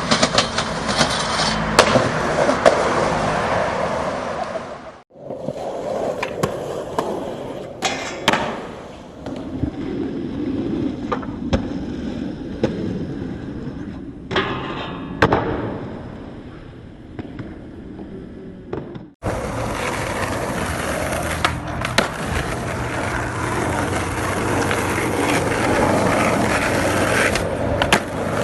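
Skateboard wheels rolling, with sharp clacks of the board popping and landing. The sound cuts abruptly twice from one clip to another: steady heavy rolling at the start and end, quieter rolling with separate clacks in between.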